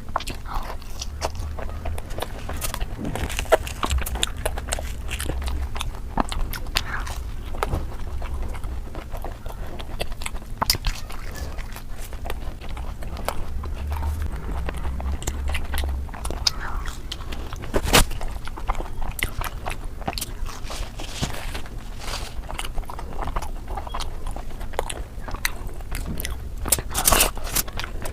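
Close-miked mouth sounds of a person eating puri with curry: biting and chewing, with irregular small clicks scattered throughout and a sharper one now and then.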